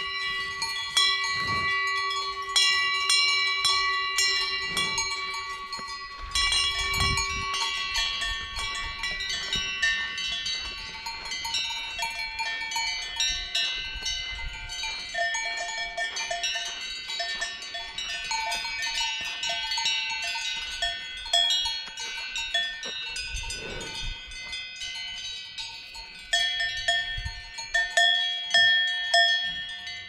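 Cowbells on grazing cattle clanking and ringing, an irregular, overlapping jangle of bells at several different pitches.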